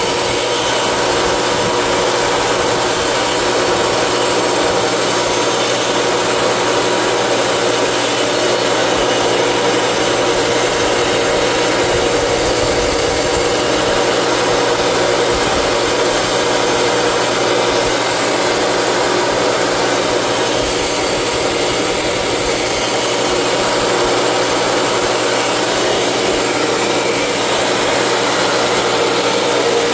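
A 5 hp Baldor three-phase motor on a metal cutoff saw running steadily, fed from single-phase power through a Vevor digital phase converter. It gives a constant machine hum and whir that holds the same level throughout.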